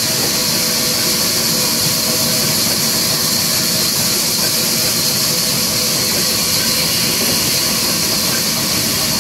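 Belt-driven sawmill band saw running steadily under its electric motor, a loud, continuous hiss and whine that is strongest high up.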